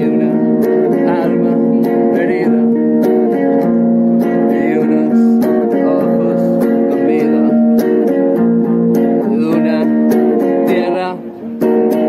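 Music on a strummed acoustic guitar, with steady chords struck in a regular rhythm and a brief break about a second before the end.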